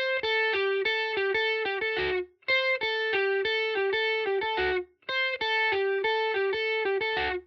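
Solo electric guitar playing a short riff of quick single notes, played three times with a brief silence between each pass.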